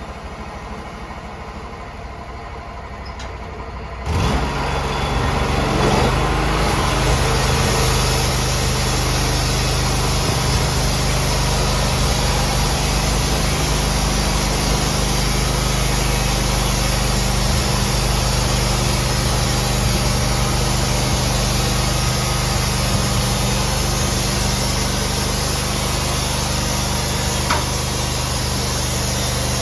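An engine is heard at low level, then is revved up or started sharply about four seconds in and runs steadily at speed after that.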